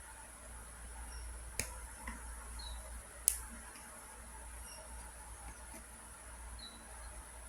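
Plastic links of a Wacky Tracks fidget toy clicking twice, sharp single clicks about a second and a half apart, over a faint steady hiss.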